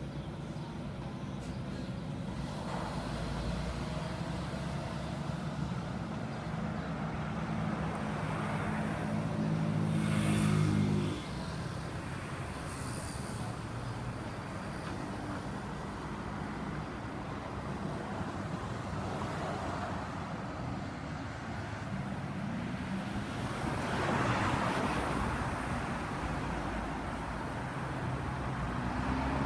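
Street traffic. An engine runs steadily for about the first eleven seconds, grows louder, then cuts off abruptly. After that cars drive past, one of them loudest about two thirds of the way through, with engines picking up speed.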